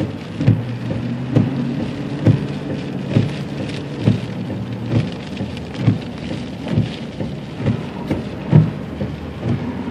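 Heavy rain beating on a car, heard from inside, with a steady low hum. A soft thump repeats about once a second.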